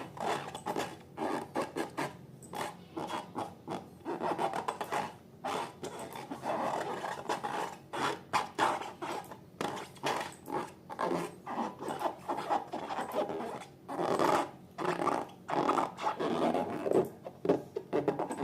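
Slime being worked and mixed: irregular sticky rubbing and scraping sounds in quick, uneven strokes.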